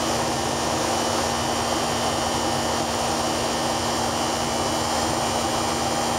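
Steady cabin noise inside a Boeing 737-500 in flight: the drone of its wing-mounted CFM56-3 jet engines and the air rushing past the fuselage, with a steady low hum running through it.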